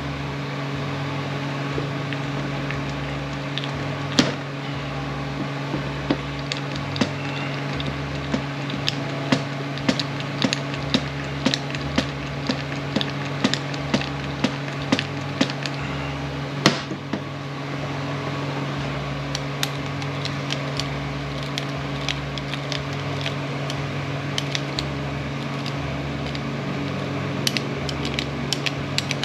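Hand-lever grease gun being pumped into an impact wrench's grease fitting, with a sharp click at each stroke, roughly one a second and faster near the end, over a steady low hum.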